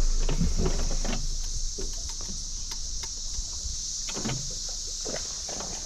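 Wind rumbling on the microphone and small waves knocking against the hull of a bass boat, strongest in the first second or two, over a steady high drone of insects from the shore.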